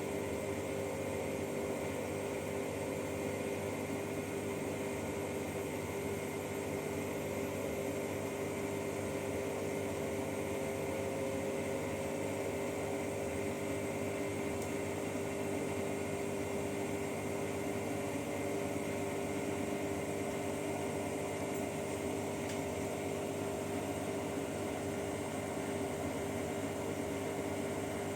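Bosch washing machine drum spinning at speed in the spin cycle. It makes a steady motor whir with a whine that rises slowly in pitch.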